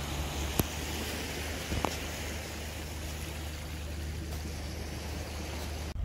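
Small waves washing gently onto a sandy beach, with a steady low hum under the wash and two short clicks in the first two seconds.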